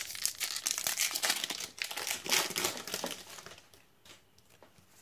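Foil wrapper of a Pokémon trading card booster pack crinkling quickly as it is handled and opened, dying away about three and a half seconds in.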